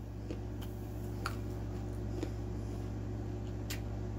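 Quiet room tone: a steady low hum with a few faint, brief clicks scattered through it.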